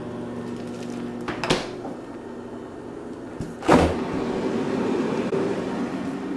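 A steady hum, a light knock about a second and a half in, then a louder thump near four seconds as the refrigerator door is swung shut, followed by a rustling of handling noise.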